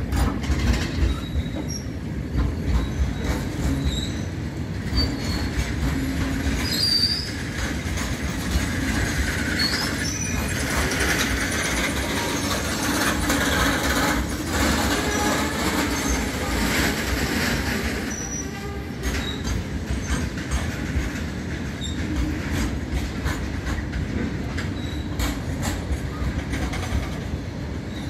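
A freight train of Indian Railways BCN covered goods wagons rolls past close by. Its wheels rumble and clatter steadily over the rail joints, with short high squeals from the wheels now and then. The wheel noise is brighter and harsher through the middle of the passage.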